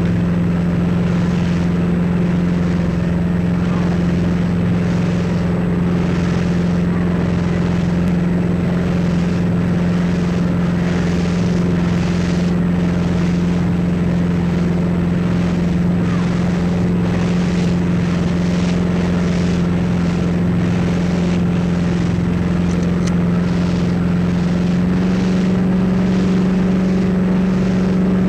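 A steady, loud mechanical hum, one unchanging low tone with fainter tones above it, under a faint hiss that repeats at an even pace.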